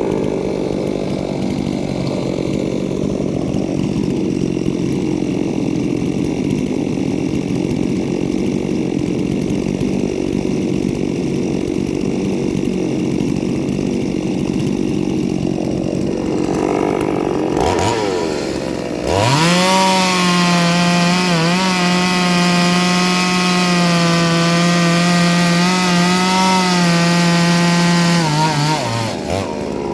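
Ported two-stroke chainsaw cutting wood, the engine under load at high revs. For the first two thirds it runs rough and ragged in the cut. It then briefly drops, picks up again to a steady, even high-pitched note, and falls off near the end.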